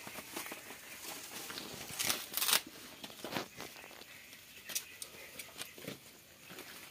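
Fish cooking on a wire grill over an open fire: crackling, with scattered clicks and rustles as the grill and fish are handled, the loudest cluster about two seconds in.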